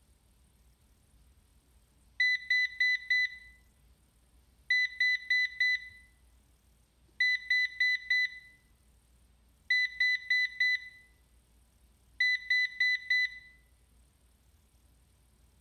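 Ecovacs DEEBOT N79S robot vacuum on its dock sounding its error alarm: five groups of four quick high-pitched beeps, one group about every two and a half seconds. This repeating beep error, which came on after docking, is the sign of a failing battery that was no longer charging properly, the cause Googling suggested to the owner.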